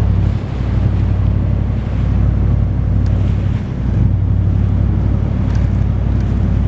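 A motorboat under way: the engine's steady low drone under wind buffeting the microphone and water rushing past the hull.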